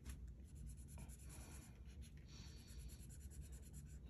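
Faint scratching of a marker tip on a paper card, colouring in small squares in short strokes.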